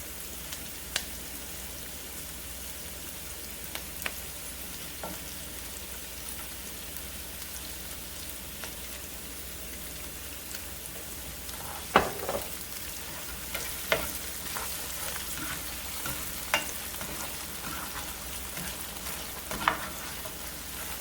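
Onions frying in a pan with oyster sauce, a steady sizzle, being stirred, with a few sharp knocks of the utensil against the pan, the loudest about twelve seconds in.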